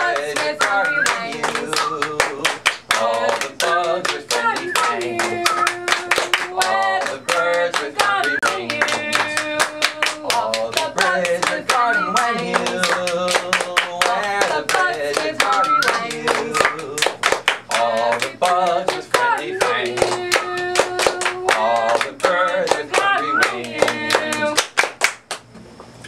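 Voices singing a song over steady rhythmic hand clapping, with some long held notes. The song stops suddenly about a second before the end.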